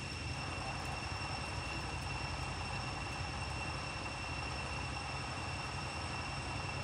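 Steady outdoor background noise: a constant high-pitched whine with overtones over an even hiss and a low rumble, unchanging throughout, with no calls from the monkeys.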